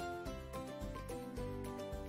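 Soft background music: an instrumental melody of short held notes changing every fraction of a second.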